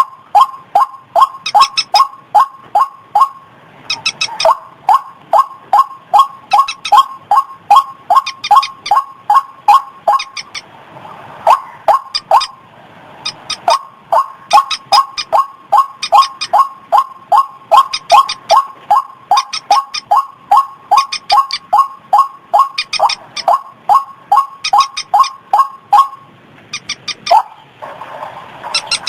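White-breasted waterhen (ruak-ruak) calling in a long series of loud, short notes, about three a second, with a few brief pauses. These are the calls used as a lure for the bird.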